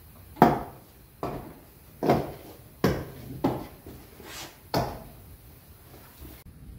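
A series of about six sharp knocks, roughly one every three quarters of a second, each dying away quickly; the first is the loudest.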